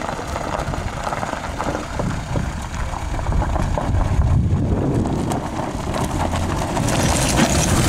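Ford Fiesta hatchback driving slowly over a rough stony track, its engine running under the crunch and knock of stones beneath the tyres, getting louder over the last few seconds as the car comes close.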